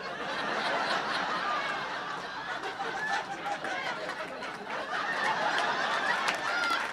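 Audience laughing in a comedy club, a sustained wave of many voices laughing together.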